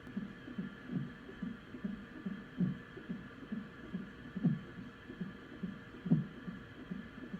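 Hiccups heard as muffled, low thumps about every one and a half to two seconds, over a fast, steady heartbeat-like pulse of about two and a half beats a second.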